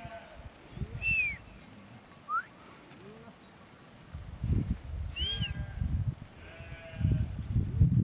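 Sheep in a moving flock bleating, with a couple of long wavering bleats in the second half. Two short high chirps sound about a second and two seconds in.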